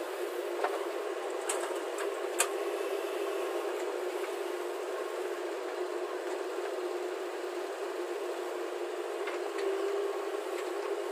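Steady mechanical droning noise with a few sharp clicks in the first couple of seconds and two more near the end.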